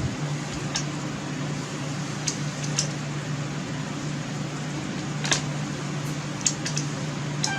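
Scattered light clicks and taps of small pistol crossbow parts being handled, about six in all, over a steady low hum of a fan or air conditioner.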